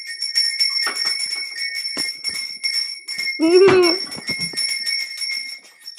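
Small bells shaken and jingling continuously: rapid jingles over a steady ringing tone. About three and a half seconds in, a short high cry slides down in pitch.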